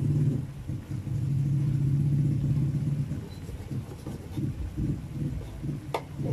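Thick adobo sauce of chicken livers and gizzards bubbling low and steady in a wok as it is cooked down nearly dry, breaking into uneven plops in the second half. A sharp click near the end, as the metal spoon strikes the pan.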